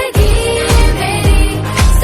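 Background music: a Hindi pop song with a steady drum beat and singing.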